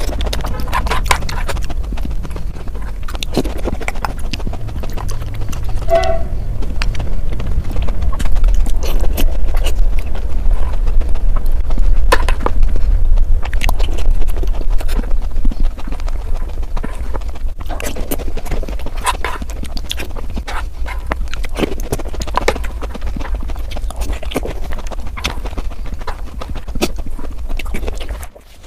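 Close-miked eating sounds sped up several times over: a dense, rapid run of crunching and chewing clicks over a low rumble.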